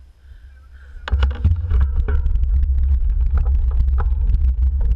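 Wind buffeting a road bike's handlebar-mounted action camera microphone, starting suddenly about a second in as the bike gets moving. Over it come many sharp clicks and rattles from the bike rolling on rough asphalt.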